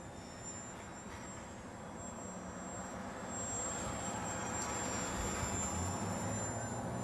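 Steady engine drone of a passing aircraft, growing gradually louder.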